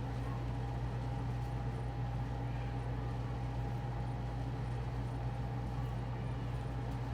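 A steady low mechanical hum with a faint steady higher tone above it, unchanging throughout.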